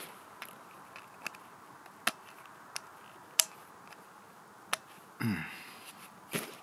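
Sharp, irregular clicks and taps, about eight of them, from small gear being handled. A short grunt comes about five seconds in.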